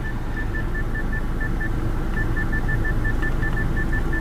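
Short high electronic beeps from the Skoda Octavia's touchscreen infotainment unit, about five a second, as its scroll-down button is pressed repeatedly, with a brief pause a little before halfway. A steady low hum runs underneath.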